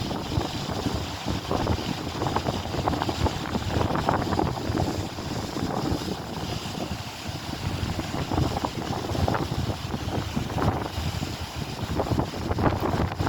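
Strong wind buffeting the microphone: a gusty, rumbling noise that swells and eases.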